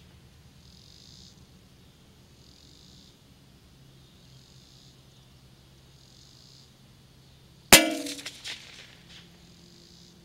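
A single .22 LR shot from a Savage Mark II FVSR bolt-action rifle about three-quarters of the way in: one sharp crack with a brief metallic ring and a few quick echoes trailing off.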